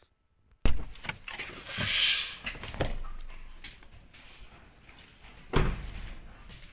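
Handling noise with two heavy thumps, the first sudden and loud, the second about five and a half seconds in: a pickup's door being opened and shut.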